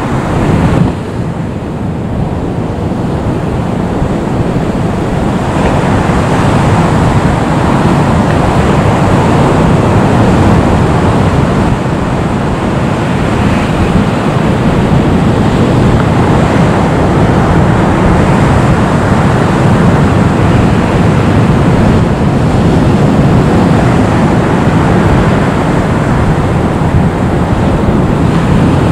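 Boeing 737 MAX 8's CFM LEAP-1B jet engines running at taxi power: a loud, steady rushing noise that grows louder about five seconds in, with wind buffeting the microphone.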